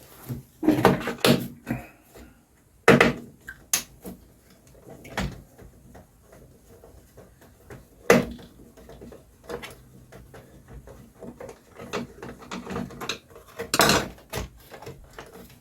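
Screwdriver and screws clinking and rattling against an electrical unit's case as it is unscrewed and opened, in scattered clicks and knocks, the sharpest about 3, 8 and 14 seconds in.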